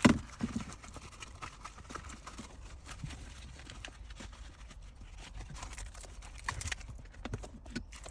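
Irregular light clicks and knocks of plastic parts being handled as a DSG shift knob is fitted onto the gear shifter and its cable fed through, over a faint low steady hum.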